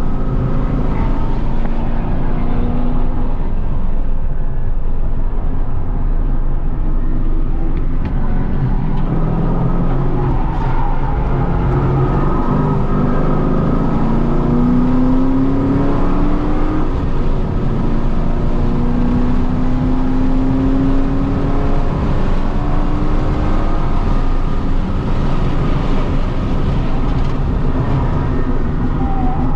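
Holden Commodore VE SS ute's 6.0-litre V8 driven hard on a race track, its engine note rising under acceleration a few times and falling back in between.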